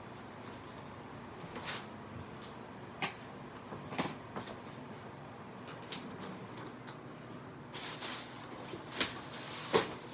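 Scattered knocks and clicks of household things being handled, with a short rustle about eight seconds in; the two loudest knocks come near the end.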